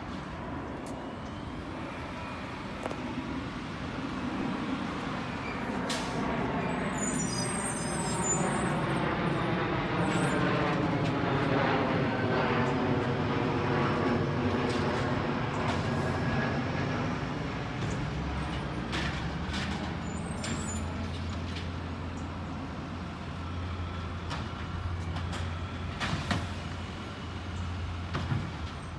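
Garbage truck's diesel engine running as the truck pulls up to the curbside carts, its pitch rising and falling and loudest about halfway through. It then settles into a steady low drone, with several sharp knocks near the end.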